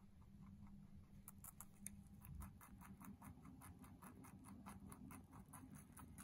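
Holland lop rabbit chewing carrot tops: faint, quick, even clicks of chewing, about five a second, starting about a second in.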